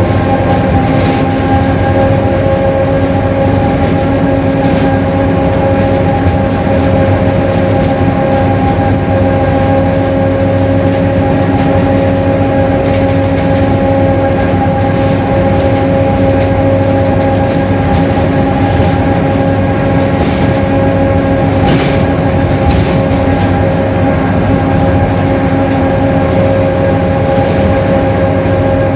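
Mercedes-Benz OF-1721 Bluetec 5 bus under way at a steady speed, with the differential droning: a steady whine of several held pitches over the drivetrain rumble. A few faint rattles come through on top.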